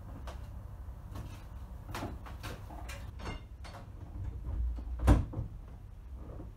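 Signal box lever being pulled over in the lever frame: a short low rumble builds into one heavy clunk about five seconds in. Lighter knocks and clicks come before it.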